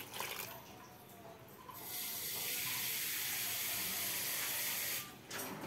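Water poured from a measuring cup into a stainless steel pot of sliced sponge gourd, a steady splashing hiss that starts about two seconds in and stops abruptly about three seconds later.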